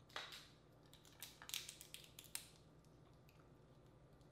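Boiled crawfish shell cracking and crackling as it is peeled by hand, a quick run of small faint snaps over the first two and a half seconds.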